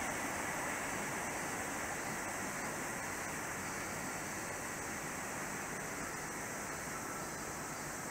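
Steady running noise of an electric train on a distant track, easing off slowly as it draws away, over a constant background hiss.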